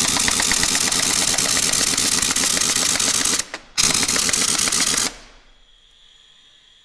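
Impact wrench hammering in a rapid rattle for about three and a half seconds, pausing briefly, then running again for about a second and a half before stopping, as it breaks loose heavy truck fasteners.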